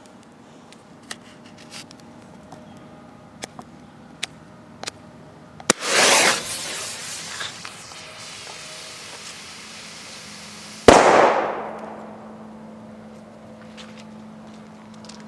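MK5 Thunderflash airsoft grenade: a few light clicks, then a sharp click and a loud hiss of the fuse burning that fades over a couple of seconds. About five seconds after the click it goes off in a single sharp, loud bang that rings out for about a second.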